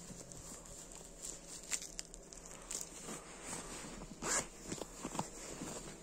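Winter jacket fabric rustling as hands handle and shift jackets on hangers, with scattered small knocks and a louder rustle about four seconds in.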